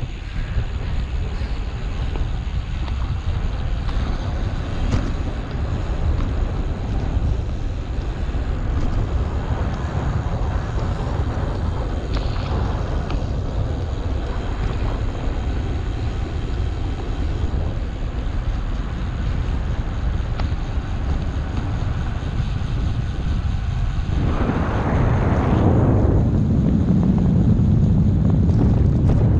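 Wind buffeting the microphone of a camera riding along on a moving bicycle, a steady low rumbling rush. Near the end a louder rushing sound swells up and holds.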